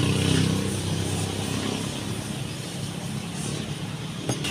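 A motor vehicle engine running close by, loudest at the start and fading over the first few seconds. A single sharp knock sounds near the end.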